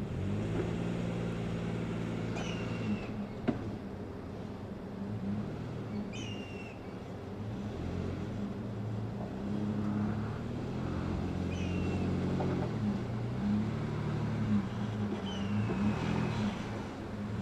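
Nissan Frontier PRO-4X's V6 engine running at low revs while crawling off road, its pitch rising and falling as the throttle changes. A bird chirps four times over it, short calls that drop in pitch.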